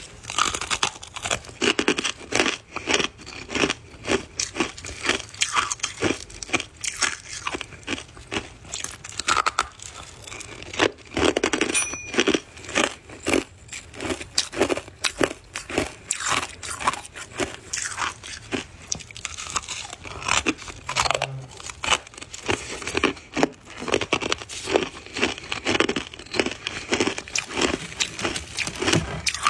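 Soft white ice being bitten and chewed close to the microphone: a dense, irregular run of crisp crunches, several a second.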